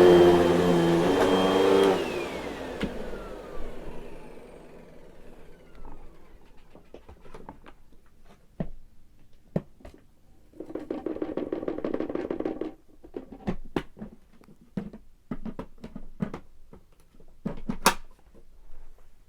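Vacuum cleaner motor running, then switched off about two seconds in, its whine falling as it spins down. Clicks and knocks of handling follow, a brief second burst of the motor midway, and a sharp click near the end.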